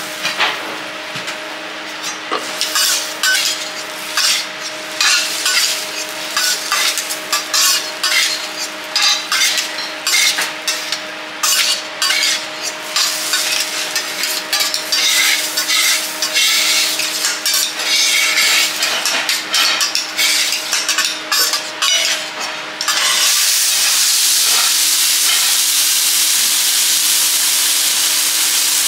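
Wagyu beef cubes frying on a steel teppanyaki griddle. A metal spatula and fork scrape and clack on the steel as the cubes are stirred and tossed, over a light sizzle. About 23 s in, the sizzle suddenly turns loud and steady and holds.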